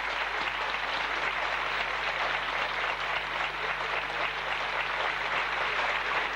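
Audience applauding, a dense, steady clapping that holds at one level.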